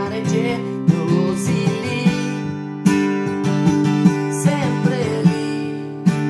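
Mahogany acoustic guitar strummed in a steady rhythm, about two strokes a second, playing chords to accompany a song.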